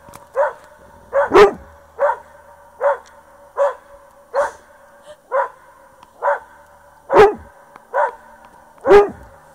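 A dog barking again and again at its own echo, about a dozen short barks at a steady pace of a little more than one a second. A few barks are much louder than the rest, and the quieter ones sound like the echo coming back.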